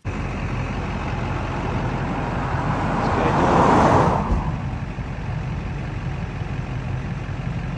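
A vehicle engine runs steadily beside a road. About three seconds in, a passing vehicle swells and then fades away.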